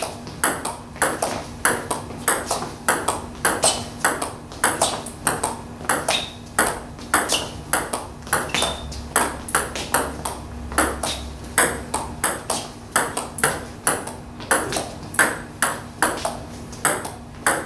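Table tennis ball clicking back and forth in a steady forehand push rally: the celluloid ball ticking off the rubber-covered bat and bouncing on the table, several clicks a second in an even rhythm.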